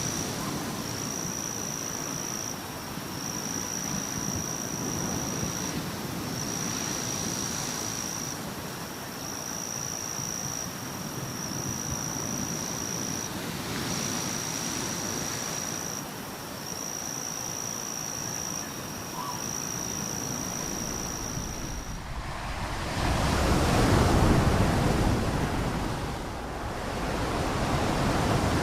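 A high, thin buzzing note repeats in phrases of about two seconds over a steady natural background hiss. About two-thirds of the way through this cuts to ocean surf, waves washing in and swelling twice.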